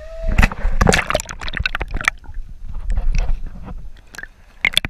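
River water splashing and sloshing around a kayak being paddled, with irregular knocks and clatter.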